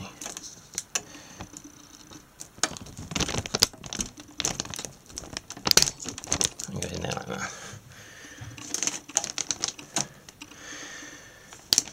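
Plastic CPU power cable connector being handled and pushed into its motherboard socket: irregular small clicks, taps and rustling, in clusters.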